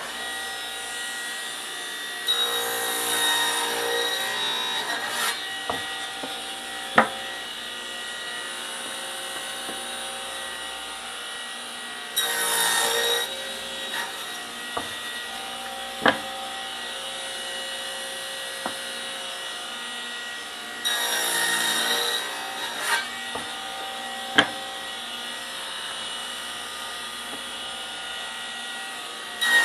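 Table saw running steadily as it makes repeated crosscuts through 2x4 lumber on a sliding sled. Three cuts about nine seconds apart, each a louder one- to three-second stretch of blade biting wood, with a sharp knock of wood between cuts.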